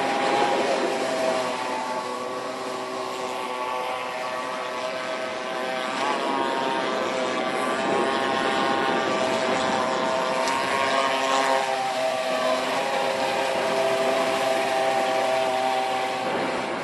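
Radio-controlled racing speedboat's engine running at speed as the boat skims across the water, a steady buzzing note whose pitch shifts up and down a couple of times.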